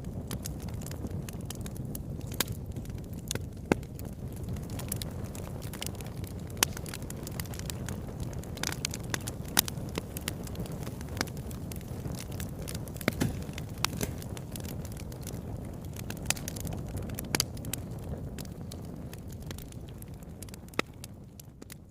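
Wood fire crackling in a fireplace: irregular sharp pops and snaps over a steady low rumble of the burning, fading down near the end.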